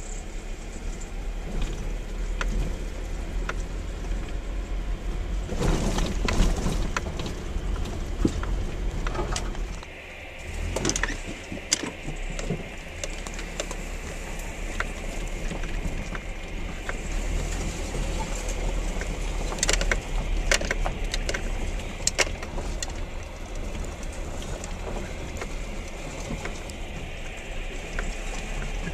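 Vehicle driving slowly along a rough dirt track: a steady low engine and road rumble, with scattered knocks and rattles as it jolts over bumps, most of them in the middle.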